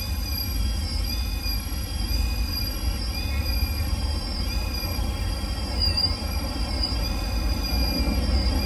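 Holmes Hobbies Revolver 1800kv brushless motor and drivetrain of an RC rock crawler whining under load on a rock climb, the high whine dipping in pitch and recovering about once a second as throttle and load change, over a steady low rumble.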